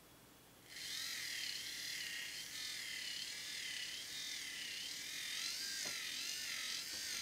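The small DC motor of a toy bubble shooter's peristaltic pump starts about a second in and runs with a high whine that wavers up and down in pitch. It is on low voltage from a variable bench power supply, below 3 volts.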